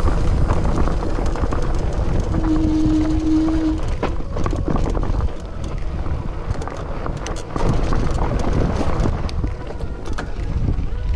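Mountain bike rolling fast over rocky dirt singletrack: tyres crunching on gravel and the bike rattling and clattering over rocks, with wind rumbling on the microphone. A brief steady tone sounds about two seconds in.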